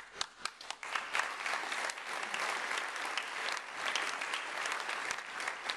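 Audience applauding: a few separate claps in the first second, then many people clapping together.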